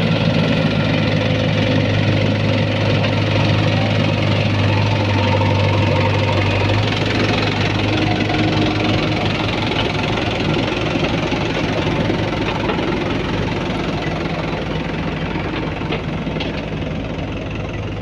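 Diesel engine of heavy earthmoving machinery running steadily. Its low hum shifts about seven seconds in and eases off slightly near the end.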